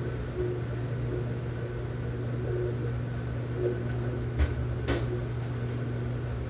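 Washing machine running a rinse cycle with a steady motor hum, with two short clicks about four and a half and five seconds in.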